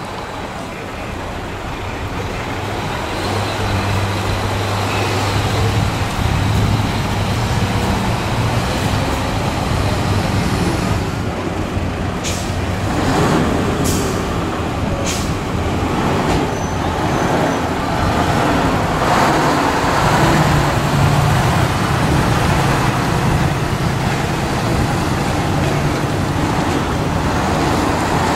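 Diesel military cargo trucks driving past one after another, engines running steadily. There are three short air-brake hisses about halfway through.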